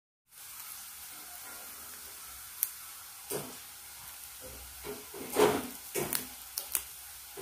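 Thin, crisp fried potato chips being snapped and crumbled between the fingers: a run of sharp, crisp cracks, loudest a little past the middle, over a faint steady hiss.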